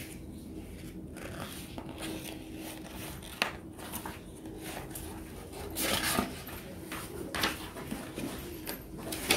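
A sheet of paper being picked up and handled on a tabletop, with a few short rustles and scrapes, the loudest about six seconds in and at the end.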